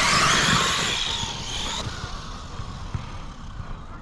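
Kraton 6S EXB RC truck's brushless motor and drivetrain whining, its pitch gliding up and down, then stopping abruptly about two seconds in: the truck cutting out, its fanless ESC overheating.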